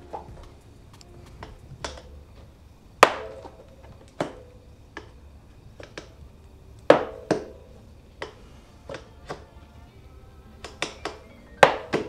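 Irregular sharp clinks and knocks of metal tools and bike parts being handled during a mountain bike build, several with a short metallic ring, over faint background music. The loudest knocks come about three seconds in, twice around seven seconds, and near the end.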